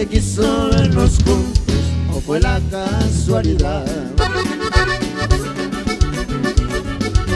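Norteño band instrumental break: a button accordion plays an ornamented lead melody over electric bass guitar. About four seconds in, the accordion shifts to held chords.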